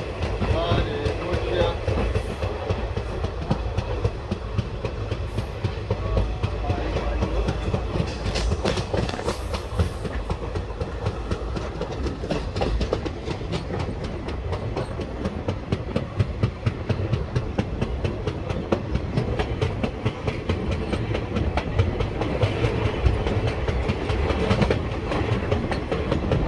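Wheels of a moving passenger train clattering over rail joints, heard from the open door of a coach, over a steady low rumble. The clicks come thick and uneven, without a pause.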